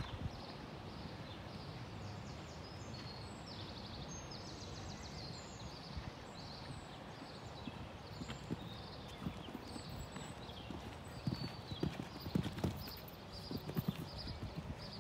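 A cantering horse's hoofbeats on arena sand, heard as soft thuds. They come through most loudly in a run of beats in the last third.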